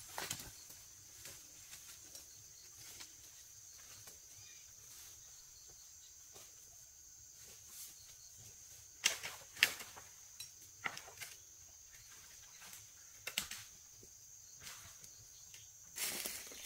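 Outdoor ambience: a steady high-pitched insect drone, with scattered rustling and crackling, like steps or handling of dry vegetation, loudest about nine to ten seconds in and again near the end.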